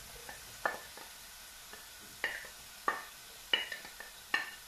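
Wooden spatula knocking against a plate and a clay cooking pot as sliced onions are scraped into hot oil: several sharp knocks with a brief ring, about a second apart and louder toward the end, over a faint sizzle.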